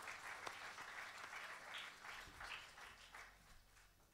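Audience applause, thinning out and fading away toward the end.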